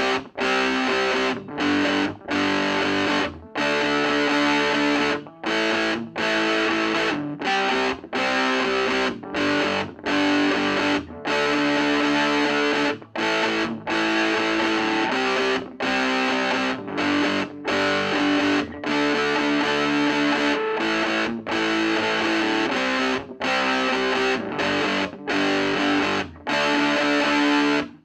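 Electric guitar played through the overdrive channel of an Ever Play RG-60 solid-state 2x12 combo amp, giving a distorted tone. Rhythm chords come in short stop-start bursts broken by many brief silences, and the playing stops short at the very end.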